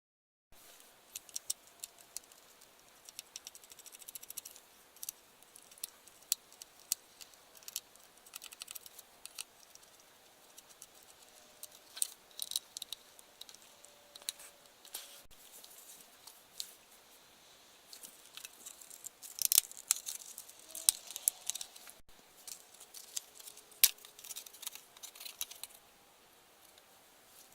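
Irregular small clicks, taps and light scrapes of hardware being handled while a mini PC is opened and its drive, M.2 SSD and RAM are fitted, with a busier run of clicks about two thirds of the way through.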